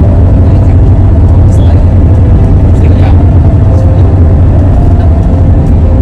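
A vehicle driving on the road, heard as a loud, steady low rumble of engine and road noise.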